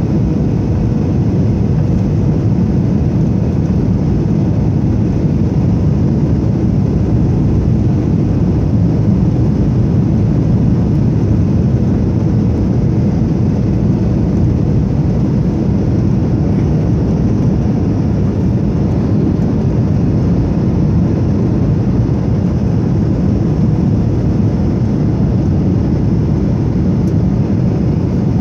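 Steady engine and airflow noise inside the cabin of a Boeing 737-800 descending on approach to land, from its CFM56-7B turbofans and the rushing air. It is a constant low rush with a faint steady hum on top.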